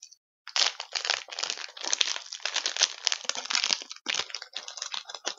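Chocolate wafer's wrapper crinkling as it is handled and opened by hand. It is a dense run of crackling that starts about half a second in and goes on almost to the end.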